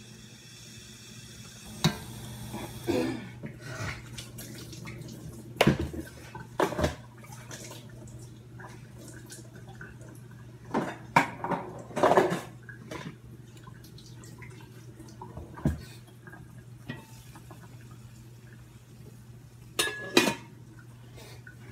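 Aluminium cooking pots and lids clanking and scraping: a series of irregular sharp knocks with short scrapes, busiest about halfway through, over a steady low hum.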